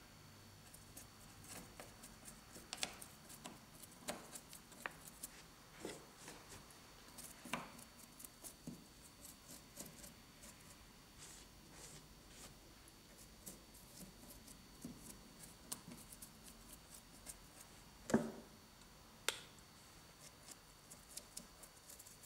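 Faint, irregular small clicks and taps of hands handling a paintbrush and painting materials, with a sharper knock about 18 seconds in and another a second later.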